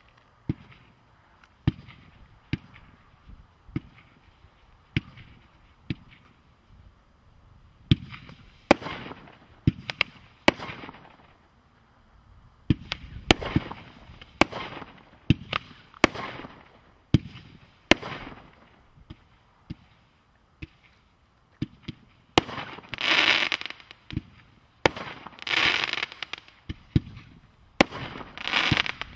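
Fireworks International 'Oriental Samurai' firework cake firing: a steady run of launch thumps roughly once a second, joined from about eight seconds in by crackling, hissing bursts of the shells breaking in the air, which grow longer and closer together near the end.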